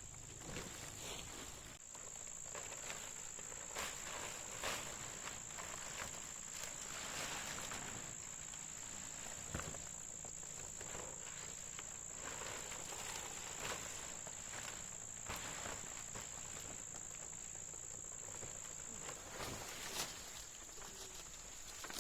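Insects trilling in one steady high-pitched tone, with scattered light knocks and rustles.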